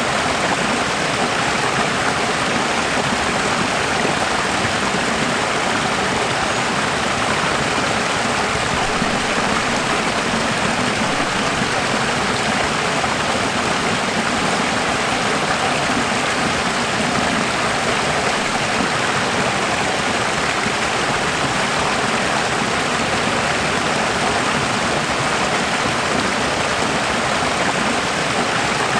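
Running water rushing steadily, an even, unbroken hiss like a flowing stream.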